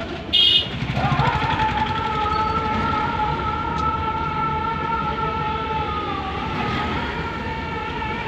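A vehicle horn toots briefly near the start. Then a steady, high two-note tone holds for about seven seconds over road and engine noise, heard from inside a moving car.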